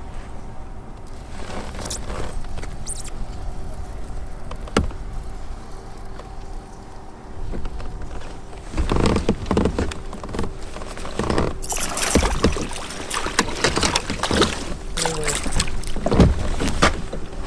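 Knocks, rattles and water sounds of fishing from a kayak, becoming much busier about eight seconds in, over a faint steady hum.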